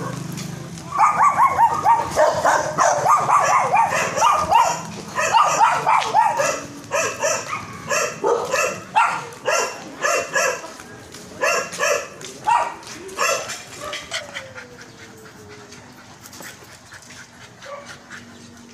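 A dog yapping in quick, high-pitched barks, several a second at first and then more spaced out, followed near the end by one falling whine.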